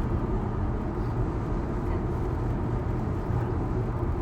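Steady low road and tyre rumble heard from inside the cabin of a moving Tesla; being electric, the car adds no engine sound.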